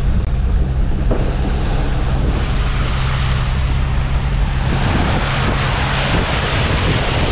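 Land Cruiser Troopy driving through muddy floodwater: the engine runs with a steady low drone while the tyres churn and splash through the water.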